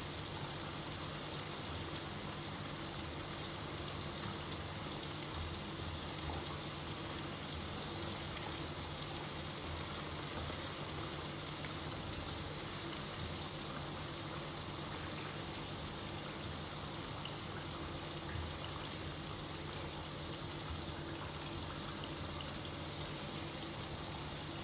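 Potato sticks deep-frying in hot oil, a steady bubbling sizzle. This is the first of two fries, taking the fries to about 60–70% done.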